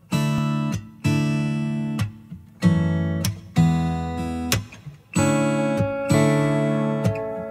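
Background music: acoustic guitar strumming chords, each one ringing and fading before the next, about one a second.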